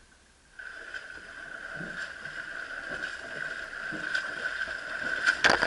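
A swimmer doing butterfly stroke splashes through the water, about one stroke a second, getting louder as they come closer, with the heaviest splashes near the end. A steady high hum runs under it.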